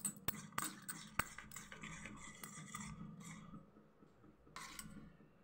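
A metal spoon stirring thick gram-flour batter in a steel bowl. A few sharp clicks of spoon on bowl come in the first second or so, then softer scraping, with a brief pause about four seconds in.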